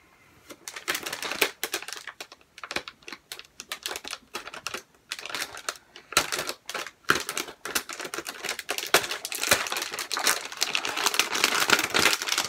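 Plastic packaging of model rocket kit parts crinkling and crackling as it is handled and opened, a dense run of irregular sharp clicks after a brief quiet start.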